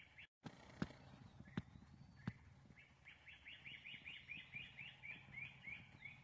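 A bird singing a quick run of short repeated high notes, about four a second, through the second half. Earlier there are three sharp clicks, each about three-quarters of a second apart, over a faint steady low hum.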